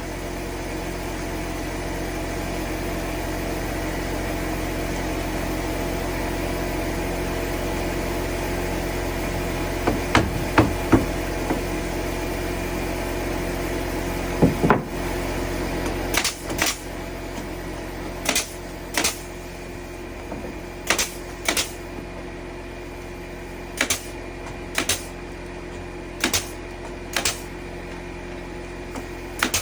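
A steady motor hum for about the first half, then sharp knocks, often in pairs, every second or two, typical of hammering during carpentry work.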